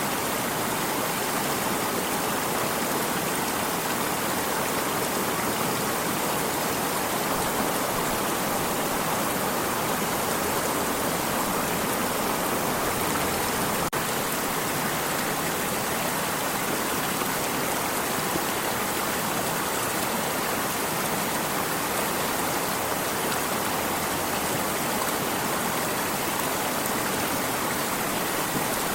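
Stream water flowing and splashing in a steady, even rush.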